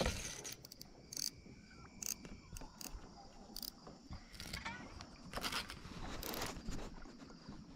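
Faint, steady, high-pitched insect chorus over the water. Scattered sharp clicks and knocks come from the baitcasting rod and reel being handled and cranked.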